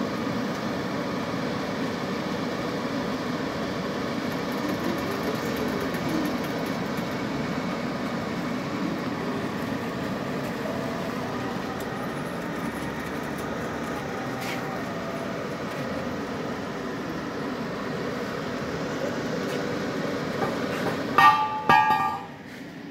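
Steady mechanical running noise of a CNC pipe-cutting machine, with a few slow rising and falling changes in pitch. Near the end comes a brief loud blare of several steady tones, after which the noise drops.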